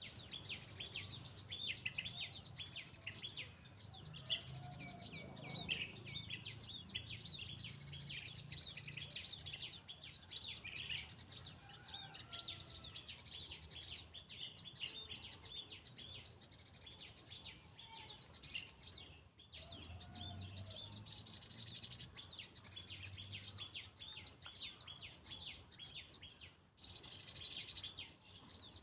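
Several small birds chirping continuously, with many quick, high chirps overlapping one another.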